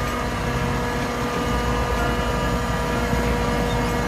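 Truck engine sound, running steadily like an idle: a fast low throb under several steady humming tones.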